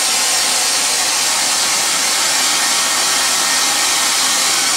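Handheld hair dryer running steadily, blowing hot air to dry freshly applied leather dye.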